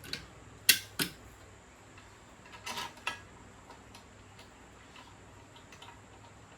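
Metal hand tools and bolt hardware clinking while handlebar mount bolts are fitted: two sharp clicks within the first second, a short rattle of clicks about three seconds in, then a few faint ticks.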